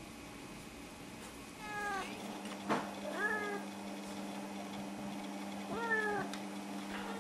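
Snowshoe cat meowing three times, short calls that each drop in pitch at the end. A single sharp click comes between the first and second meow.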